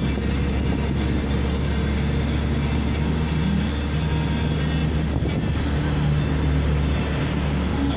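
Steady low rumble of road vehicles: engine and tyre noise of cars and vans on the road, with no clear rise or fall.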